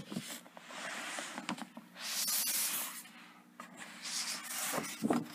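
Cardboard box scraping as it slides out of its snug cardboard sleeve, in three drawn-out rubs, the loudest about two seconds in, with small knocks between them.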